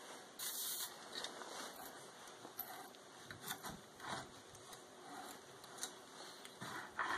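A short hiss from an aerosol spray can about half a second in, then faint scraping and clicking as a hand tap is turned with a tap wrench, cutting a thread into a metal workpiece held in a vise.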